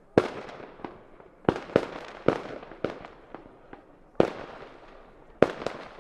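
Fireworks exploding: about a dozen sharp bangs at irregular intervals, each trailing off in a short echoing tail. The loudest come just after the start, about four seconds in and about five and a half seconds in.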